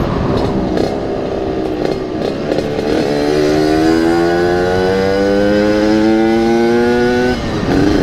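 Yamaha RX-King 135's single-cylinder two-stroke engine with an aftermarket exhaust, ridden on the road. Its pitch rises steadily for about four seconds as the bike accelerates, then drops suddenly near the end at a gear change or throttle lift.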